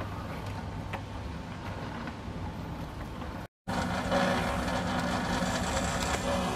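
A motor vehicle engine idling with a steady low hum. It cuts out for a moment about three and a half seconds in and comes back louder.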